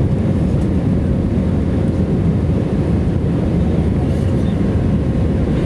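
Steady engine and airflow noise inside the cabin of an Airbus A319-115 in flight, heavy in the low end, with a faint steady hum over it.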